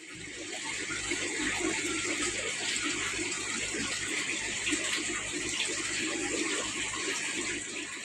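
Water running steadily, with an even splashing hiss, and then cutting off just after the end.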